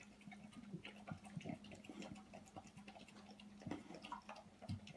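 Bulldog eating wet dog food from a bowl: quiet, irregular wet smacking and licking, over a faint steady hum.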